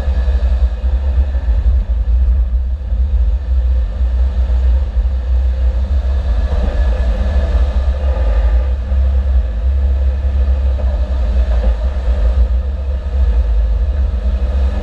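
Car driving, with a steady heavy low rumble of engine, road and wind noise.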